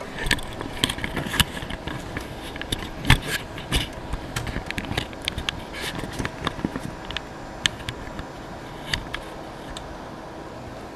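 Irregular clicks, taps and short scrapes of hands handling a bare laptop hard drive and its small parts on a work surface, over a faint steady hum.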